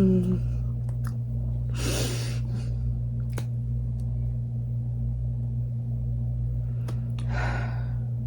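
A woman's heavy breaths: a loud breathy exhale about two seconds in and another near the end, over a steady low hum, with a couple of faint clicks between them.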